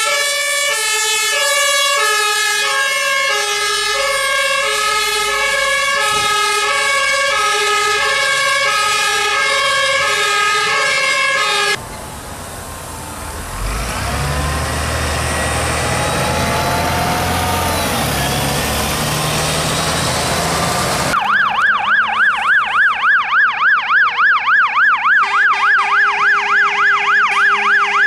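Fire service vehicle's two-tone hi-lo siren, alternating about twice a second. After about 12 s it is replaced by a city bus's engine running with street noise. From about 21 s a second emergency vehicle's fast yelping siren warbles about three times a second as it approaches.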